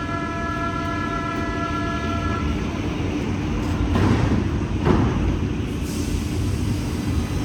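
BVG Class H U-Bahn electric train at the platform, with a steady low rumble throughout. A set of steady tones sounds for the first two and a half seconds and then stops, and two short noisy bursts come about four and five seconds in.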